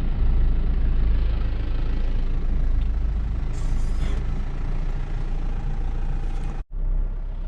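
A farm vehicle running at low speed, a steady low engine rumble with rattling driving noise. Near the end it cuts off abruptly and gives way to a steadier, lower hum.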